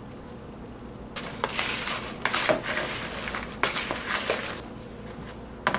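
Popped popcorn rustling as a hand tosses it around a plastic mixing bowl to coat it with cheese powder. The rustling starts about a second in and lasts about three and a half seconds, and a short clatter comes near the end.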